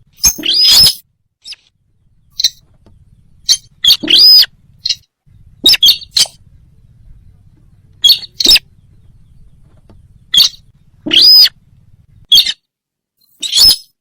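Repeated short, sharp calls of the bird known in Indonesia as sintar, played as a hunting lure call. They come at irregular intervals of about one to two seconds, some with a quick rise-and-fall in pitch.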